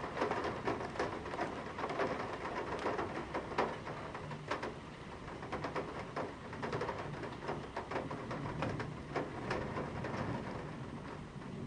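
Heavy rain striking a metal window sill, heard from inside: dense, sharp individual drop hits over a steady rain hiss, thinning a little near the end.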